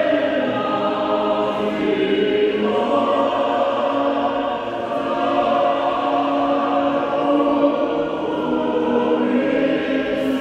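A choir singing, with long held notes that move to a new chord every couple of seconds.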